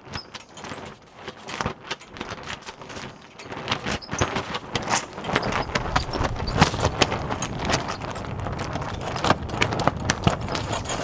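A flag flapping and snapping hard in strong wind: a fast, irregular run of sharp cracks over a low rumble of wind, getting louder about four seconds in.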